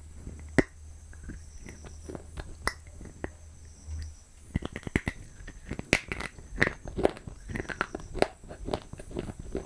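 Teeth biting into a hard, crumbly white block. A sharp crack comes about half a second in, then a few scattered crunches, turning into quick, dense crunching from about halfway through.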